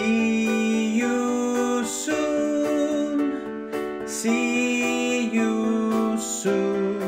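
Outro of a school song: a voice holding long sung notes, the closing "see you soon" line, over plucked-string accompaniment such as a ukulele.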